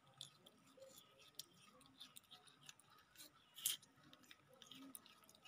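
Baby macaques eating a slice of sweet melon: faint, scattered wet clicks and smacks of biting and chewing, with one sharper click about three and a half seconds in.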